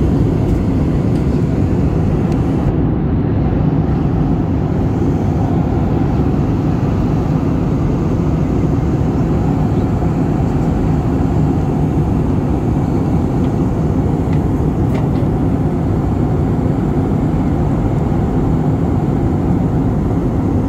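A jet airliner in flight, heard from inside the cabin: a loud, steady, deep rumble of engine and airflow noise.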